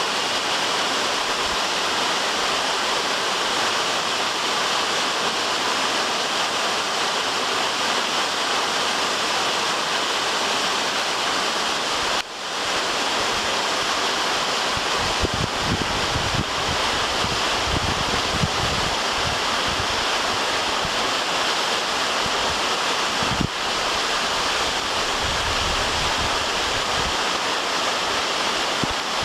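Waterfall pouring steadily, a dense, even rush of falling water. Low wind buffeting on the microphone comes in gusts about halfway through and again near the end.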